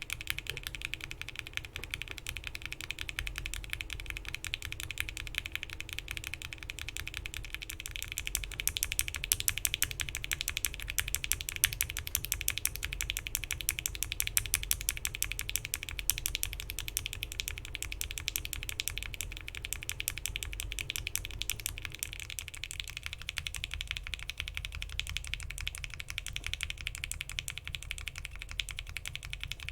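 Fast continuous typing on a mechanical keyboard with linear Gateron Milky Yellow frankenswitches: Milky Yellow bottom housings with UHMWPE stems, 67g TX long springs, an FR4 plate and PBT keycaps. The tone changes about a third of the way in and again about three-quarters through, as the top housing goes from a Cherry top to an Alpaca top and then to an NK cream top.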